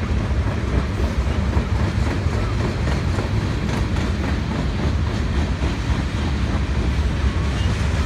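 Freight train cars, black tank cars then centerbeam flatcars, rolling past with a steady low rumble of steel wheels on rail.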